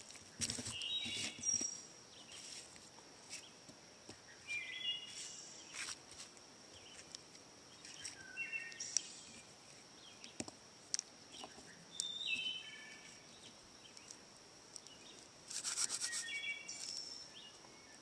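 Soft crackling and rustling of dry, shredded rotted wood fibres being picked through by hand. A bird sings a short phrase of descending notes about every four seconds over a steady high insect whine.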